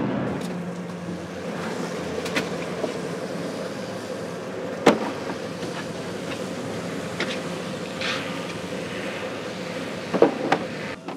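Longliner fishing boat's engine running steadily, with a few sharp knocks and clanks over it, the loudest about five seconds in and two close together near the end.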